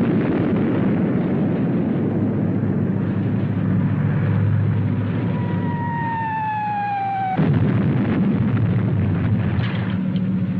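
Battle sound effects: a steady rumble of artillery and shellfire. About five and a half seconds in, a shell whistles down in a falling tone for about two seconds and ends in a sudden blast.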